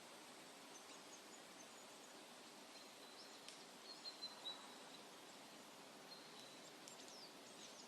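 Birds chirping faintly over a steady background hiss, with short high notes scattered through and a brief run of louder chirps about four seconds in.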